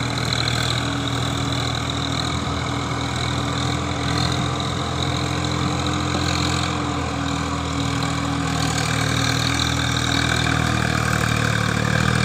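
Swaraj 855 FE tractor's three-cylinder diesel engine running steadily under load as it pulls an implement through a flooded paddy field.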